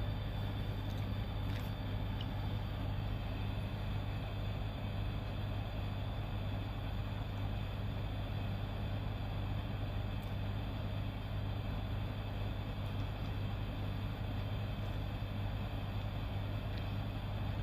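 Boat engine running steadily with an even low hum, along with water and wind noise.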